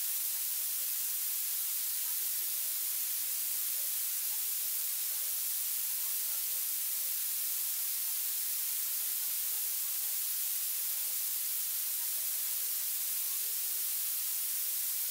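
Steady, high-pitched electronic hiss of recording noise at an even level, with a faint voice barely showing beneath it.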